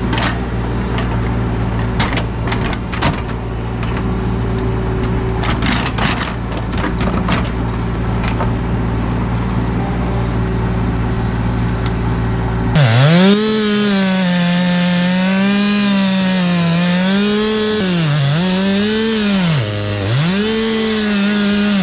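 Heavy machinery running steadily with scattered cracks and knocks, typical of a stump being torn out or ground. About thirteen seconds in it cuts to a chainsaw engine, whose pitch repeatedly sags and recovers under load.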